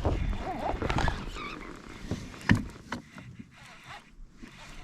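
Knocks, rustling and water sounds on a kayak as a hooked fish is fought, with one sharp knock about two and a half seconds in.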